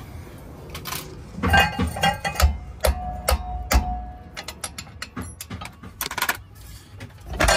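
Hand ratchet clicking and steel tools knocking and clinking against the driveshaft's rear joint at the differential flange as its bolts are undone. A few louder metallic knocks, one ringing briefly, come in the middle, with quicker runs of clicks later.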